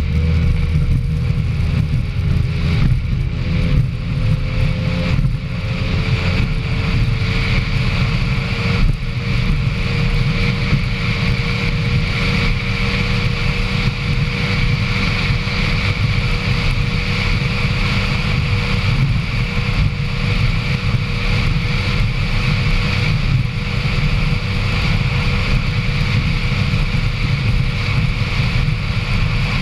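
Racing powerboat's engine running steadily at speed, heard from an onboard camera on the hull, with wind buffeting the microphone.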